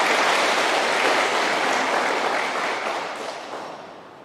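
Audience applauding, a dense steady clapping that dies away over the last second or so.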